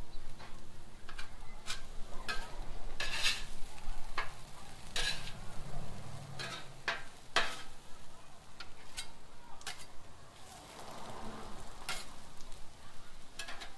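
Metal spatula chopping and scraping diced tomatoes on a hot Blackstone griddle's steel top: irregular sharp clacks of metal on steel, over a faint sizzle of food frying.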